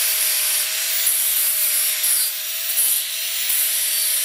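Angle grinder with an abrasive disc grinding down weld joints on a square steel-tube seat frame. It runs steadily under load, a harsh scraping with a constant motor whine underneath.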